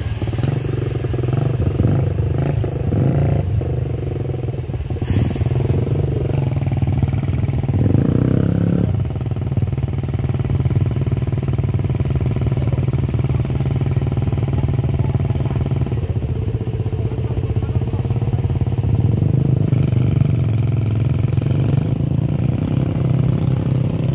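Large coach's diesel engine running steadily under load as the bus crawls up a steep, rough dirt climb. A brief hiss cuts through about five seconds in.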